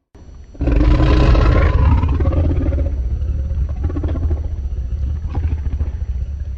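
Kaiju roar sound effect from the Godzilla films. It comes in suddenly and loud about half a second in, a pitched roar over a deep rumble, then trails off into a long low rumble with scattered clatter.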